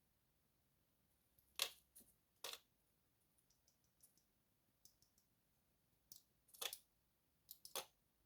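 Small metal lock parts clicking and tapping as a pin-tumbler lock is taken apart: a few sharp clicks in two clusters, one about a second and a half in and another about six to eight seconds in.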